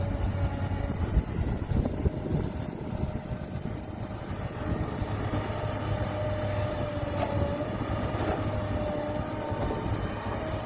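Heavy earthmoving machine's diesel engine running steadily, with a steady whine over it and a few knocks about a second or two in and again near the end.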